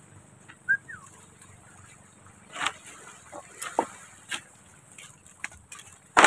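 Scattered knocks, clacks and rustles from people working on loose stones and handling wooden poles and a tarp. A short high chirp comes about a second in, and a louder clatter comes near the end.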